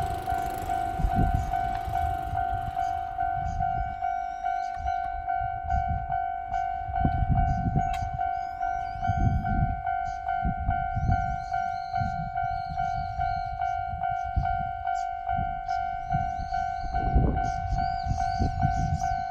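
Japanese railway level-crossing alarm giving the old standard electronic tone, one steady pitch pulsing in a fast even beat. A train's low rumble rises and falls underneath as it passes.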